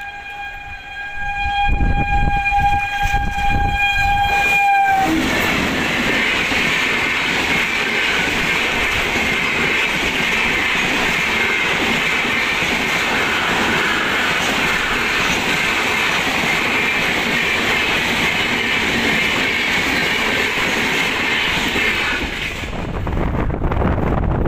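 Train horn held on one steady note for the first few seconds. Then a passenger train passes close by, coaches rattling with the noise of wheels on the rails for about seventeen seconds, stopping near the end.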